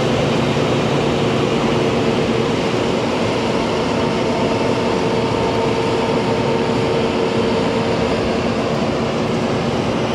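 Heavy farm machinery running steadily at harvest: a constant mechanical drone with a steady whine held through it.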